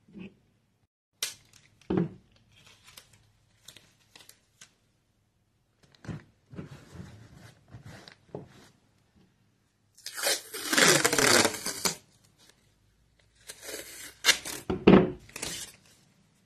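Wide masking tape being pulled off the roll, torn into strips and pressed onto a planter pot. Short tears and rustles come first, then two longer, louder pulls of tape in the second half.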